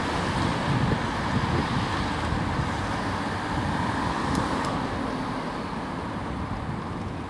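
Fukui Railway 610-series high-floor tram moving slowly along street track: a steady low rumble from its wheels and motors, mixed with street traffic noise.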